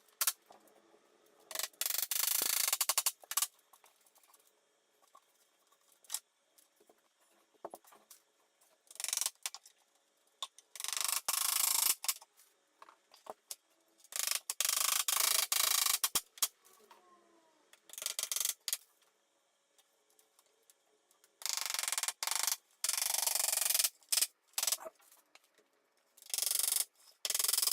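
Hand tools working wood, played back sped up: bursts of dense, rapid clicking and scraping lasting a second or three each, with short quiet gaps between them.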